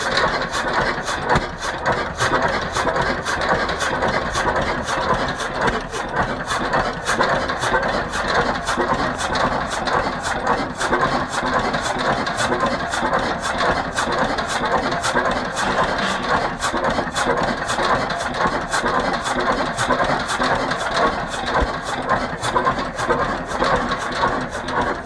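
1925 Hein 18 hp marine hot bulb engine running steadily, its regular knocking beat going on without a break.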